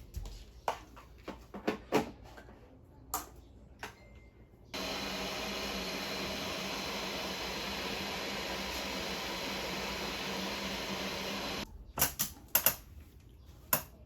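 Light clicks and knocks of objects being handled, then a steady rushing noise with a low hum that switches on about five seconds in and cuts off abruptly about seven seconds later, followed by a few more clicks.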